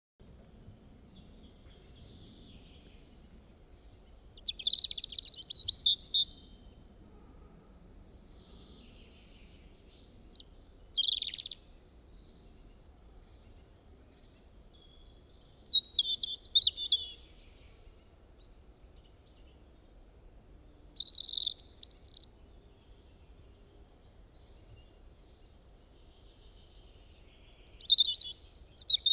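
Robin singing: six short, high, warbling phrases of one to two seconds each, separated by pauses of several seconds, over a faint low background rumble.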